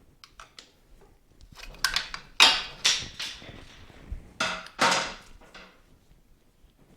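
A series of sharp metal knocks and clanks, each with a short ring, as parts are struck or handled with hand tools during a motorcycle teardown. They come in two bunches of three or four, the first starting about two seconds in and the second near the five-second mark.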